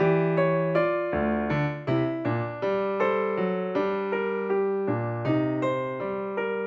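Background music: an electric piano playing a gentle tune, notes struck about twice a second and each fading.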